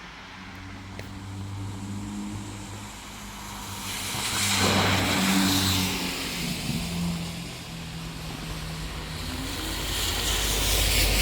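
Cars passing on a rain-wet street, engines running low and tyres hissing through water. The hiss swells as one car passes about five seconds in and another near the end.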